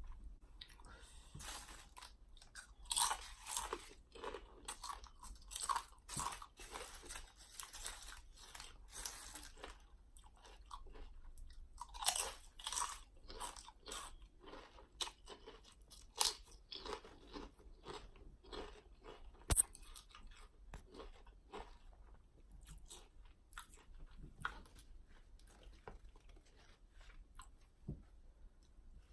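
Close-miked crunching and chewing of Lay's potato chips. The crunches come in dense runs and thin out to slower chewing in the later part, with one sharp click about two-thirds of the way in.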